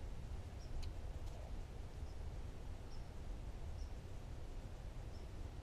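A small bird gives short, high, faint chirps, about six of them spaced roughly a second apart, over a low steady rumble of outdoor background noise. Two faint clicks come about a second in.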